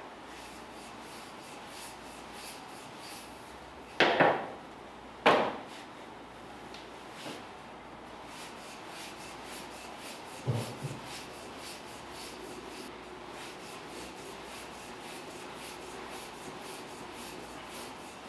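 Wooden rolling pin working pâte sucrée tart dough on a floured stainless-steel table: quiet repeated rubbing strokes, with two sharp knocks about four and five seconds in and a duller thump about ten seconds in.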